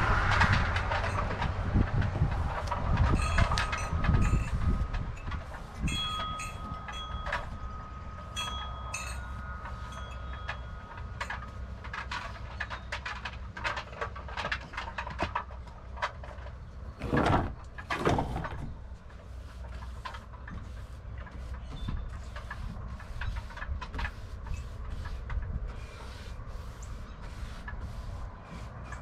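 Paintbrush strokes and light handling noises on the wooden cabinet, many short scratchy sounds. A low rumble fades over the first few seconds, and two louder knocks or scrapes come close together about two-thirds of the way through.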